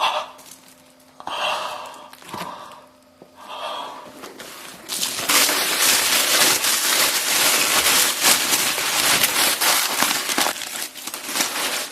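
Tin foil crinkling and tearing as a many-layered foil package is pulled open: a few short rustles at first, then from about five seconds in a loud, continuous crackle of foil being ripped.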